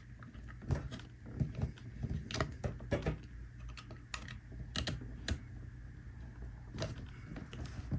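Faint, irregular clicks and taps of fingers working at a cardboard box, picking at and loosening a strip of adhesive tape that still holds the lid shut.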